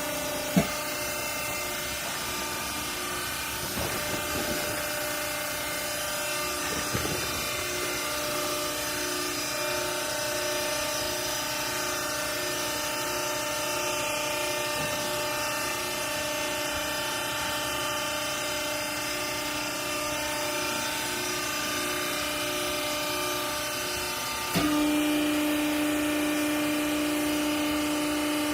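Hydraulic textile baler's motor and pump running with a steady whining hum. There is a sharp knock about half a second in, and the hum steps up louder and steadier about 25 seconds in.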